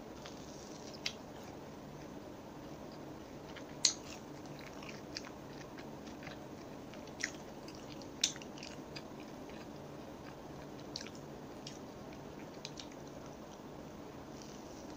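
Crispy breaded chicken nuggets being bitten and chewed: scattered sharp crunches over a steady low hum, the loudest about four and eight seconds in.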